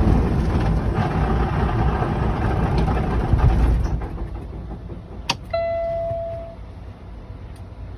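Kenworth truck's diesel engine turning over on the starter without catching, a failed start although the tank looks to have enough fuel. The cranking stops about four seconds in, followed by a sharp click and a steady electronic beep lasting about a second.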